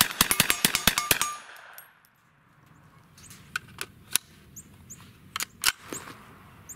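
Ruger PC Carbine in 9mm firing a rapid string of about eight semi-automatic shots in just over a second. Then it goes quiet, apart from a few faint scattered clicks.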